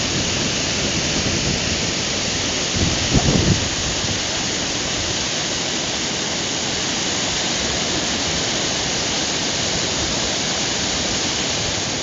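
Water rushing steadily over a low rock cascade into a creek pool, an even hiss with a brief low rumble about three seconds in.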